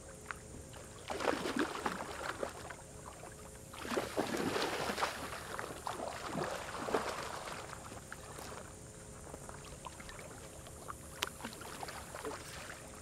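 A hooked fish thrashing and splashing at the water's surface near the bank. The splashing comes in two bouts, about a second in and about four seconds in, then fades to a few smaller splashes.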